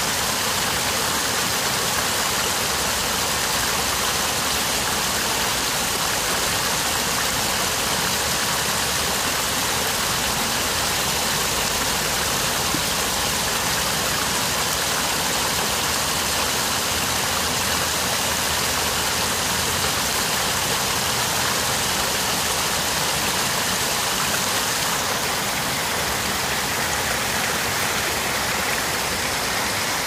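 Water from a man-made stone garden waterfall cascading over rocks into an ornamental pool: a steady rushing hiss that stays the same throughout.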